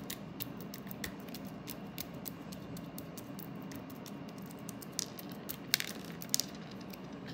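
Crunchy slime packed with fishbowl beads being poked and pressed with a plastic tool: a dense run of small crackling clicks, with a few sharper, louder pops a little past halfway.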